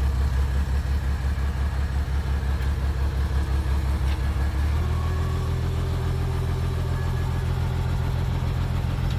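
Heavy construction machine's diesel engine running steadily with a deep drone; a little under halfway through, its note shifts as the engine speed changes.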